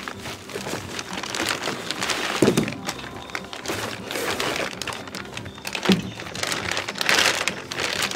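Clear plastic bag and bubble wrap crinkling and rustling as a heavy bracket is handled and unwrapped, with a dull knock about two and a half seconds in and another near six seconds.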